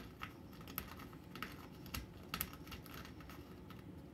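A tabby cat's claws scratching and raking a wooden pillar, giving irregular, sharp scratchy clicks.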